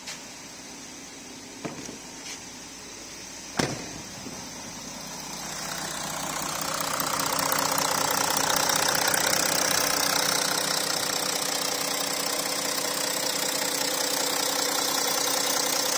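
Porsche Macan diesel's V6 turbodiesel idling steadily with a light diesel clatter, just started after a coolant flange replacement. It grows louder from about five seconds in and holds steady from about seven seconds, heard close up in the open engine bay. A few sharp clicks come in the first four seconds.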